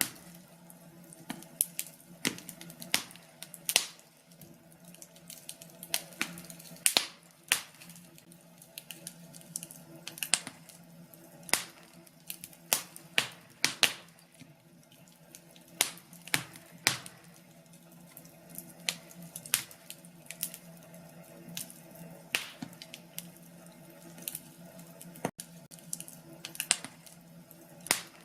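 Wood fire crackling: irregular sharp pops and snaps, a few each second, over a soft steady hiss.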